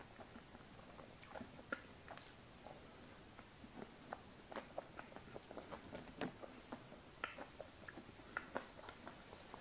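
Close-miked mouth sounds of eating soft ice cream: scattered wet lip smacks and soft chewing clicks at an irregular pace.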